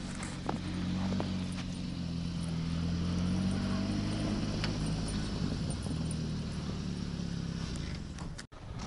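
Motor vehicle engine running, a low steady drone that swells around the middle and then fades, ending abruptly near the end.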